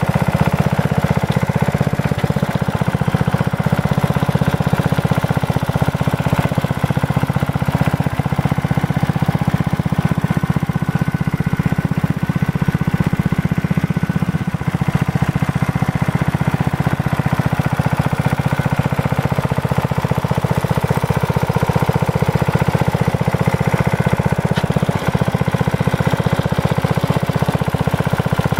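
Cast-iron single-cylinder Briggs & Stratton Model 14 engine on a Simplicity VA walk-behind tractor, running steadily as it pulls the rear cultivator through the soil.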